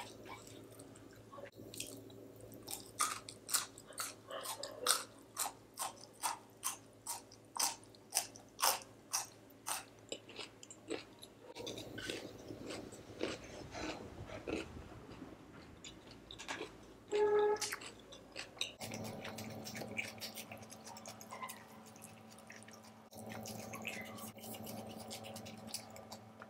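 Wet chewing and mouth clicks of a person eating chicken biryani by hand. Quick clicks come for about the first ten seconds, then the chewing turns softer. A short pitched sound about seventeen seconds in is the loudest moment, and a faint steady hum runs through the last third.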